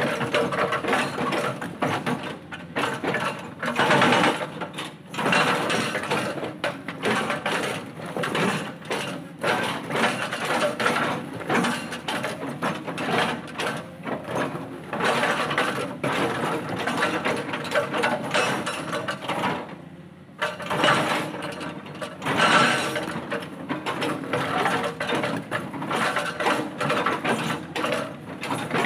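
Hydraulic rock breaker on a Cat excavator hammering a boulder: a rapid, steady run of blows that dips briefly about twenty seconds in, then starts again.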